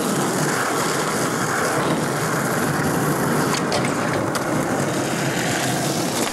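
Skateboard wheels rolling over rough concrete, a steady gritty roll. Around the middle come a few sharp clacks as the board pops onto a wooden ledge and grinds along its edge.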